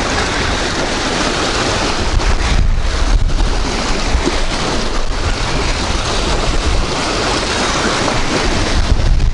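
Strong wind buffeting the microphone: a loud, even rushing with a gusty low rumble that swells from about two seconds in.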